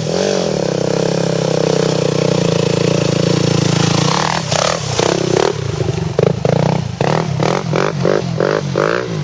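Dirt bike engine running loud and close, pulling uphill under steady throttle. After about four seconds the throttle is worked in short bursts, the engine revving up and dropping back about two or three times a second.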